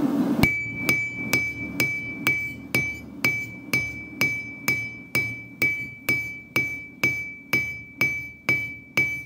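Hand hammer striking a hot railway spike on a steel anvil, drawing out a knife blade, in a steady rhythm of about two blows a second. Each blow leaves a clear, even anvil ring.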